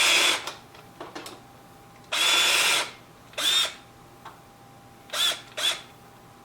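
Power drill with a Milescraft self-centering hinge drill bit, run in short trigger bursts to bore pilot screw holes through a door hinge. There are about five brief runs of motor whine: the longest is about two seconds in, and three quicker ones follow.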